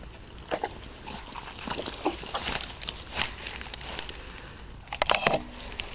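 Rubber boots squelching in wet bog mud, with crackling rustles of waterproof rain gear and grass; a quick run of wet squelches about five seconds in.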